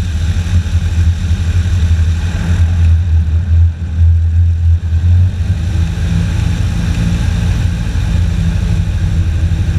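Airboat engine and propeller running with a loud, steady low drone as the boat moves over the water; the engine note drops a little about five seconds in.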